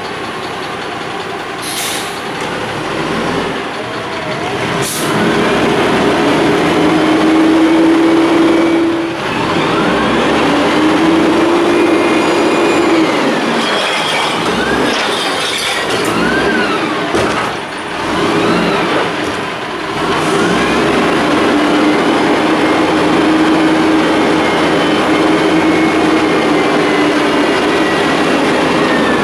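Amrep Octo front loader on a White Xpeditor garbage truck lifting and dumping a commercial bin over the cab. The engine revs up to drive the hydraulics, and a steady whine rises and holds in several stretches. There are two sharp bangs in the first five seconds, and squeals from the lift arms partway through.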